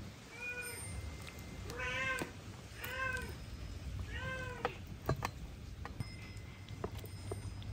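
A cat meowing four times, short calls about a second apart, each rising then falling in pitch. A few sharp clicks follow in the second half.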